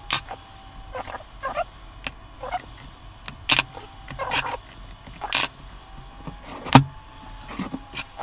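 Sharp clicks and snaps of side cutters and handling on an 18650 lithium-ion battery pack held in plastic cell holders, with a few short squeaks between them. One louder snap comes late on.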